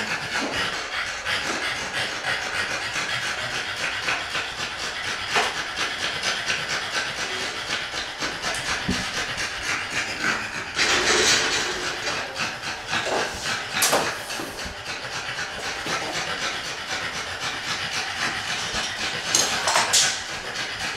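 French bulldog panting fast and steadily, a rapid run of hissing breaths, with a louder stretch about halfway through and a sharp noise shortly after.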